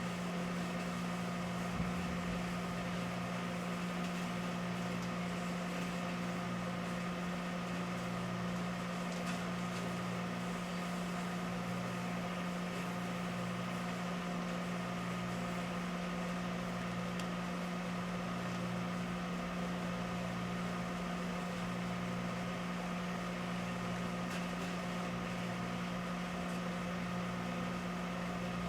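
Microwave oven running with a steady hum, and a lower throb that swells about every two seconds.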